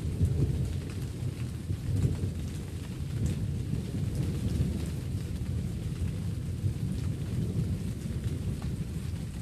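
Steady rain with a continuous low rumble of thunder.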